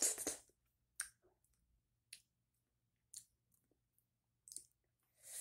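Sparse, short wet mouth clicks and lip smacks, roughly one a second, from someone whose mouth is burning from spicy sauce. A sharp breathy exhale comes in at the very end.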